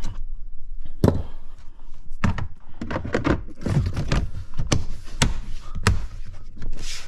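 Plastic cargo-area trim panels being pressed by hand and snapped into place: an irregular run of knocks and clicks, some in quick succession.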